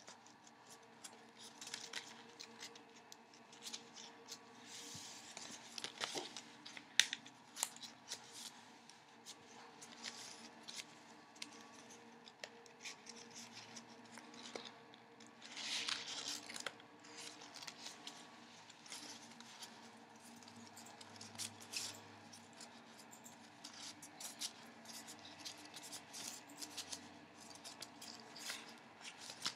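Folded paper of a modular origami eight-pointed star rustling and crinkling as hands handle and reshape it, with scattered light clicks of paper and louder rustles about five and sixteen seconds in.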